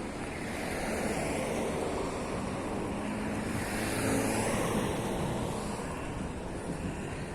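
Road traffic: a motor vehicle passing, its tyre and engine noise swelling to a peak about four seconds in and then fading.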